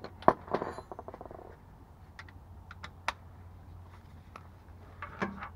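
Hand tools clicking and clinking: a sharp click, then a quick even run of about ten clicks, then scattered single clicks, over a low steady hum.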